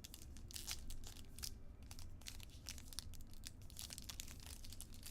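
Trading card pack wrapper being torn open and crinkled in the hands: an irregular run of short, crisp crackles.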